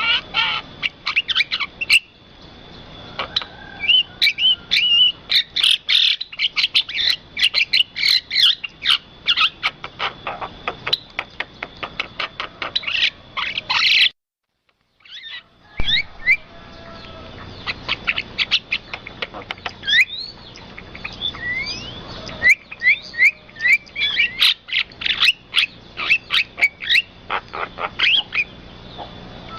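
Songbirds chirping and calling in quick, dense succession, short rising and falling whistled notes over a faint steady high tone. The sound breaks off into silence for about a second and a half halfway through, then the chirping resumes.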